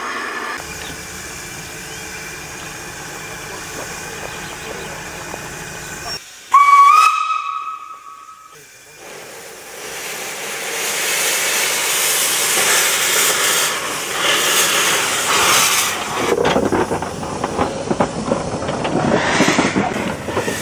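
Corpet-Louvet 0-2-0 tank steam locomotive: after a steady low hiss, the steam whistle gives one blast of about two seconds, about six seconds in, rising slightly as it opens. Then steam hisses loudly from the open cylinder drain cocks, turning into an uneven pulsing hiss near the end as the engine moves off.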